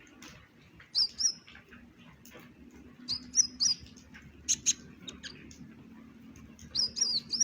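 Kolibri ninja (konin) sunbird, brown-breasted type, singing in short clusters of high, sharp chirps and twittering notes that bend up and down, a burst every second or two.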